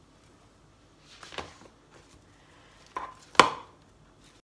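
Silicone spatula scraping thick frozen strawberry-banana sorbet out of a steel mixing bowl into a plastic tub: a soft scrape, then two knocks of utensil on container, the second and sharper one the loudest, about three and a half seconds in.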